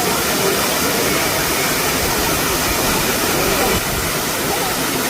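Waterfall: a loud, steady rush of falling water, with faint voices underneath.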